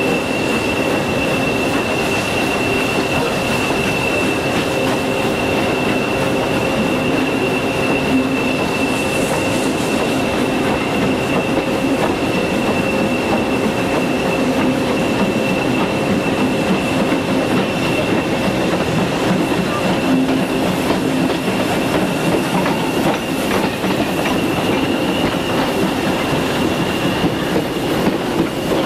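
Steam-hauled passenger trains running side by side on adjacent tracks: a steady rail rumble and rattle with a high-pitched whine held at one pitch.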